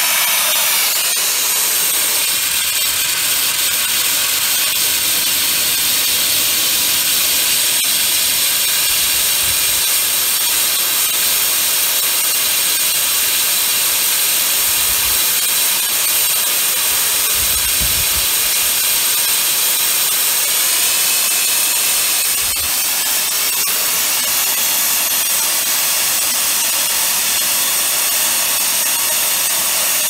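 Steady, loud hiss of steam escaping from a homemade rocket-stove steam boiler running under pressure.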